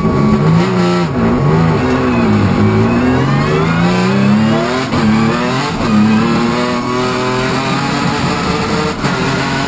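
Hyundai Genesis Coupe race car's engine heard from inside the cockpit, revs bouncing up and down at first, then climbing hard under full acceleration, with quick drops in pitch at two upshifts near the middle before pulling up again.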